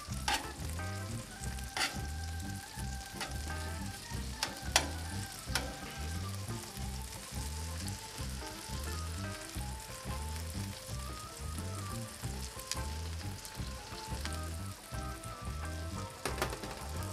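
Bacon sizzling and frying in a pre-seasoned carbon steel fry pan, with sausage frying on a griddle plate beside it. A few sharp clicks of metal tongs against the pan come in the first six seconds. Quiet background music with a steady beat plays underneath.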